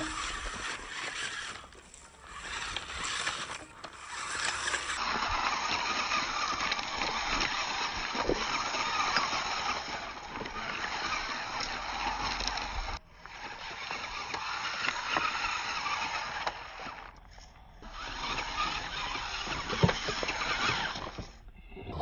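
Radio-controlled rock crawler driving over loose river stones: its motor and drivetrain run in stretches with stones crunching and clicking under the tyres, stopping briefly several times.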